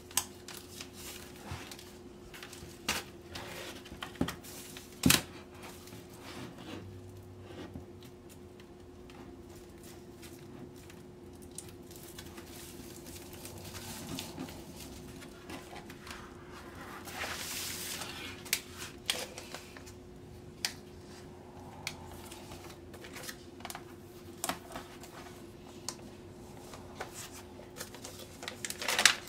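Hands handling a vinyl LP: scattered taps and knocks on the cardboard jacket and the crinkle of plastic sleeves as the records are slid out. The sharpest knock comes about five seconds in and a longer rustle a little past halfway, over a faint steady hum.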